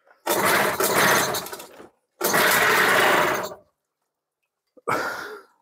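Tohatsu 3.5 hp outboard motor being pull-started. It catches three times, each time running roughly for about a second and a half before dying, and the third run is shorter. The motor is trying to start but won't keep running.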